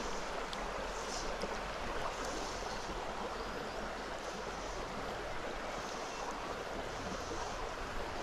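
Shallow river water running steadily over stones: a constant rush.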